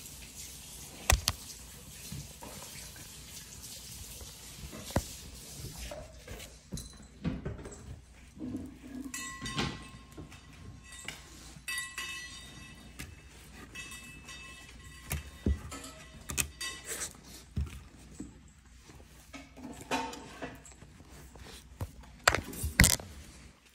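Scattered knocks and rubbing on the phone as dogs nose and push against it, loudest about a second in and near the end. A thin high tone comes and goes in the middle.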